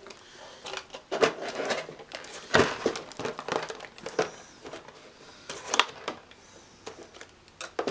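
Plastic packaging crinkling and rustling as it is handled, with several sharp clicks and knocks from parts being moved.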